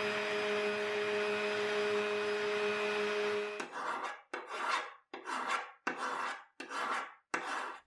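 Graphite electric orbital sander running steadily with its pad against the bayonet's steel blade. It stops about three and a half seconds in, and a flat hand file rasps across the steel blade in six even strokes, about one and a half a second.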